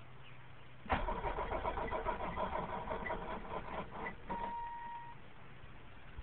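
A BMW's engine cranked by its starter motor, set off by touching the ignition wires under the dash, with a fast even chugging for about three seconds. The cranking cuts off, a short steady whine follows, and the engine does not settle into running.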